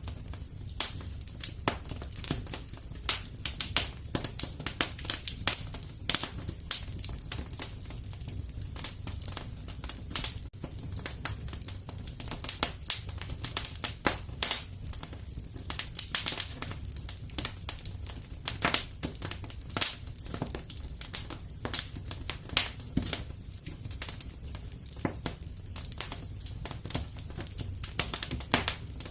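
Wood fire crackling in a fireplace: dense, irregular sharp pops and snaps over a steady low rumble.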